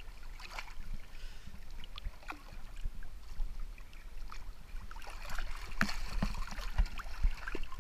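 Lake water sloshing and splashing around people wading chest-deep. Scattered small splashes and drips grow busier about five seconds in.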